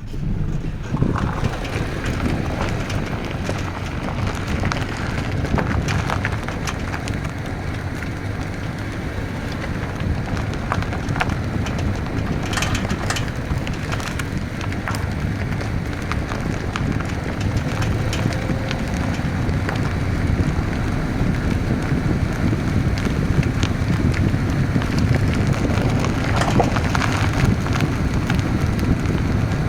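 A 2000 Honda Civic running, a steady low rumble with scattered irregular clicks and rattles on top: the weird noise the owner is recording from the car.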